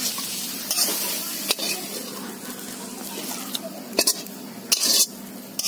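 Metal spatula scraping and clinking against a steel wok as cooked greens with shrimp are scooped out into a steel bowl, in several short strokes, the loudest about four to five seconds in, over a light sizzle from the hot wok.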